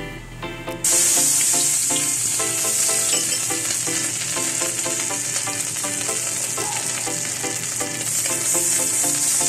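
Chopped ingredients sizzling loudly as they hit hot oil in a pan, starting suddenly about a second in and carrying on steadily while they are stirred. Background music plays underneath.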